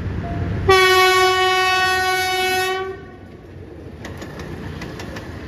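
GE-built GEK-class diesel-electric locomotive (GEK 4050) sounding one long horn blast of about two seconds, a steady pitched note, over the low rumble of the approaching train. Near the end, the wheels click over the rail joints as the carriages pass.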